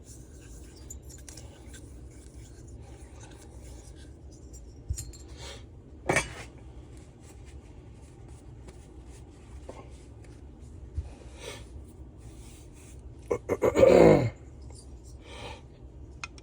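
Small engine parts and tools being handled on a workbench: scattered light clicks and rubbing, a sharp knock about six seconds in, and a louder grating sound about a second long, falling in pitch, near the end.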